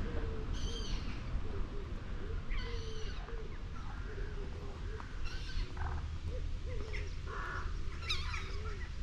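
Birds calling: a low cooing call repeated again and again, with short higher-pitched calls every two to three seconds, over a steady low rumble.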